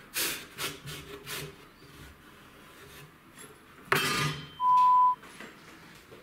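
A few short knocks and rubs, then a handsaw lands on the wooden workbench with a loud metallic clatter about four seconds in. Just after it comes a short, steady high beep lasting about half a second.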